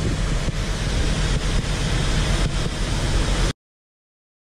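Steady, dense noise of a large blaze of burning plastic pallets, heavy in the low end, with wind buffeting the microphone and a few faint clicks. It cuts off suddenly about three and a half seconds in.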